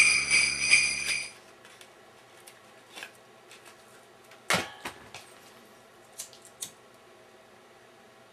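Jingle-bell music cuts off about a second in. Then small, sparse clicks and handling sounds as a cigarette pack is opened and a cigarette lit, with one sharper click near the middle and two more a little later.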